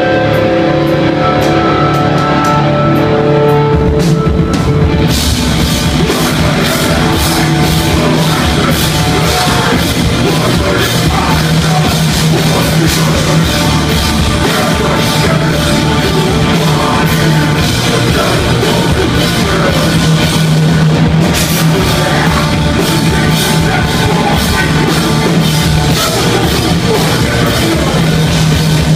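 Live rock band playing loud: a guitar riff rings out alone at first, then drums with crashing cymbals and the rest of the band come in about four seconds in. The cymbals drop out briefly about two-thirds of the way through, then return.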